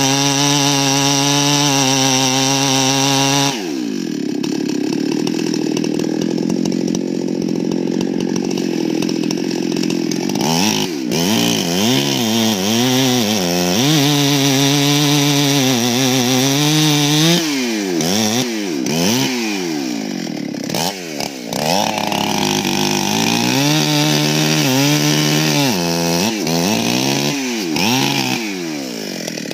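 Two-stroke chainsaw cutting through a thick tree trunk with its bar buried in the wood. The engine holds a steady high pitch for the first few seconds, then drops lower under the load. From about ten seconds in its pitch swings up and down again and again as it slows in the cut and revs back up.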